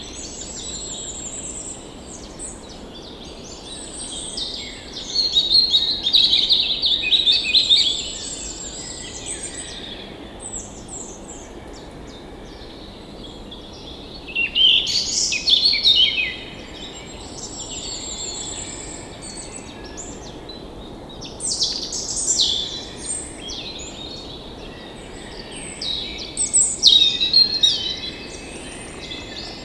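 Songbirds singing, with a high trill recurring and louder bursts of song every several seconds, over a steady background hiss.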